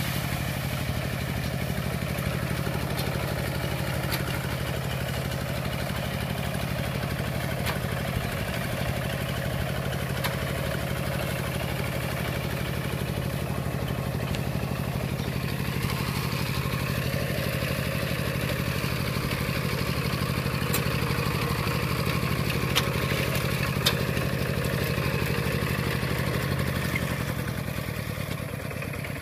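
Single-cylinder diesel engine of a Kubota two-wheel walking tractor running steadily while the tractor pulls a disc plough through grass. Its note and level drop a little near the end.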